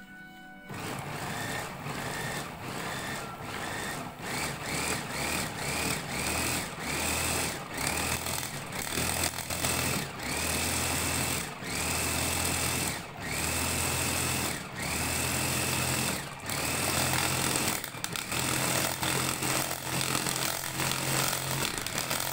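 Electric mini food chopper with a stainless-steel bowl, pulsed on and off as it chops fresh parsley. The motor runs in short bursts at first, then in longer runs of about a second with brief stops, its whine rising each time it spins up.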